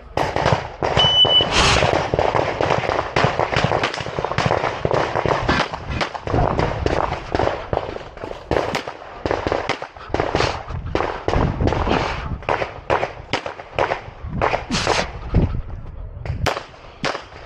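A shot timer beeps once about a second in, then a pistol fires a long, fast string of shots, many in quick pairs, with short gaps between bursts: a competitor shooting a practical-shooting stage against the clock.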